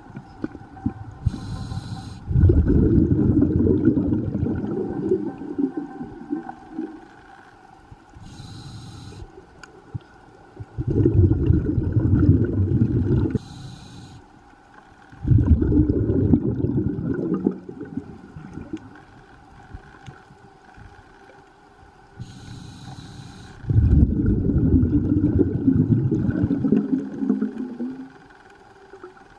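Scuba diver breathing through a regulator underwater: a short hissing inhale, then a long bubbling exhale, four breaths in all. A faint steady hum runs underneath.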